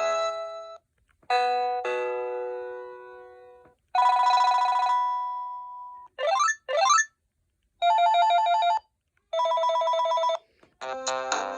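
Panasonic KX-TG7731S cordless phone handset playing its ringtones one after another. A melody ends, then come a two-note chime, a long warbling ring, two quick rising sweeps and two bursts of a trilling ring, and a new melody starts near the end.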